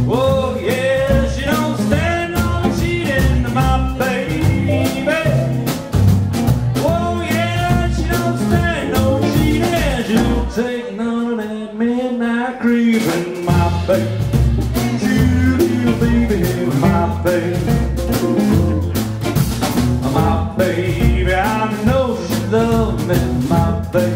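Live blues band playing: a man singing over electric guitars and an upright double bass with a steady shuffling beat. The bass drops out for a few seconds about halfway through, then comes back in.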